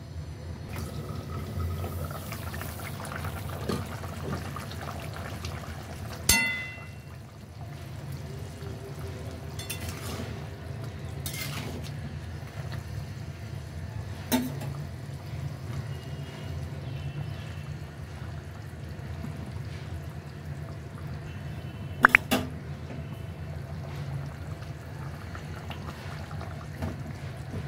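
Fish curry bubbling as it simmers in a pan, over a steady low hum, with a few sharp clinks of glass or metal about 6, 14 and 22 seconds in.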